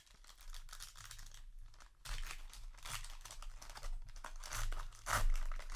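Crinkling and tearing of a foil trading-card booster pack wrapper being opened by hand, in irregular rustling bursts with the loudest tear near the end.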